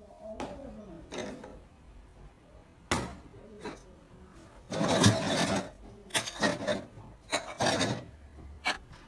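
Sharp smacks of blows struck on a person's bare back. A single hit comes about three seconds in, then hits land in quick clusters. A man's voice sounds briefly at the start.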